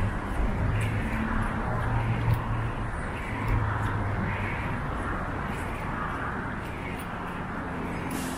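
City street ambience: traffic running steadily, with indistinct voices of passers-by.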